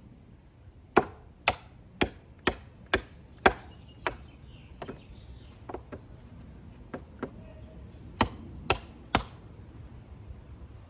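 Hammer driving rebar J-hooks into the ground: six quick strikes about two a second, a few light taps, then three more strikes near the end.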